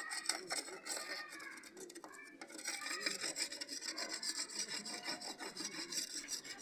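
Rapid back-and-forth scrubbing and scraping on the back of a solar panel, cleaning away residue where the old junction box was removed.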